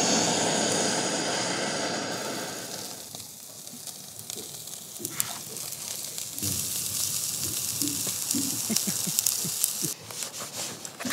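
Handheld butane torch hissing as it lights charcoal briquettes, fading away about three seconds in. Later, scotch fillet steaks sizzle and crackle on the charcoal grill, and a few sharp clicks come near the end.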